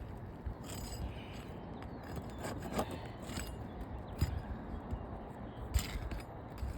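Scattered knocks and light scrapes of work on an asphalt shingle roof as shingles are lifted with a pry tool, about five separate knocks over a steady background hiss.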